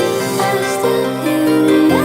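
Soft, gentle background music: sustained melodic notes over a soft bass, changing about every half second.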